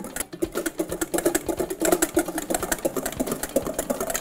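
Wire whisk beating sabayon in a stainless steel bowl over a pot of hot water: a fast, steady run of strokes clattering against the metal. The egg-yolk sabayon has bound and is thick and foamy, nearly done.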